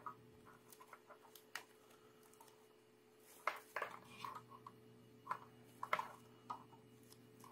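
Small plastic clicks and scrapes, scattered and irregular, as a 40-pin IDE ribbon cable connector is handled and pressed onto a sound card's pin header. A faint steady hum runs underneath.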